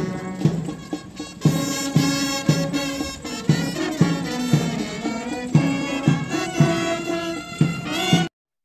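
Brass band music playing a march over a steady drum beat of about two beats a second, cutting off abruptly near the end.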